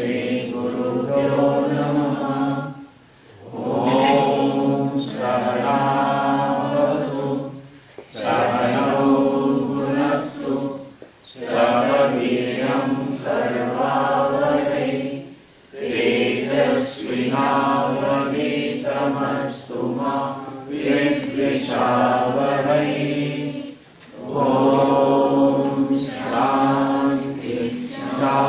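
Hindu devotional mantra chanting: voices recite Sanskrit invocations on a steady tone. It comes in phrases of about three to four seconds, with short breaks between them.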